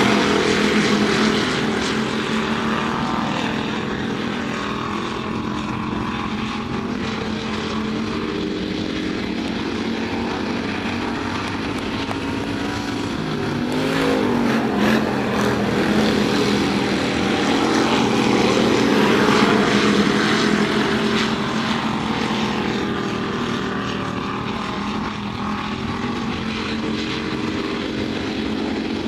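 Several IMCA Hobby Stock dirt-track race cars running at racing speed around the oval, their engines blending into a steady drone. About halfway through, one car passes close by, louder and with its pitch sliding as it goes past.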